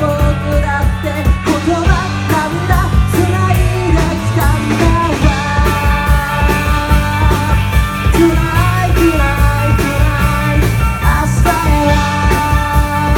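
A pop-rock band playing live: lead vocal singing over two electric guitars, electric bass and a drum kit keeping a steady beat.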